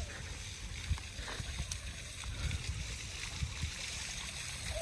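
Water of a garden fountain splashing steadily, with low rumbling on the phone's microphone.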